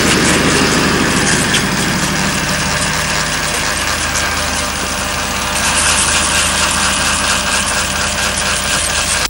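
Electric shaver buzzing steadily as it is run over the jaw and neck, over a low hum.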